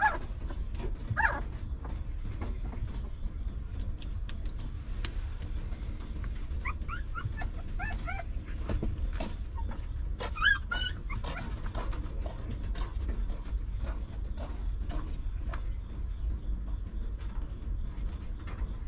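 Newborn puppies whimpering and squeaking while they nurse: short, high, wavering squeaks here and there, with a run of several in the middle. A steady low rumble lies underneath.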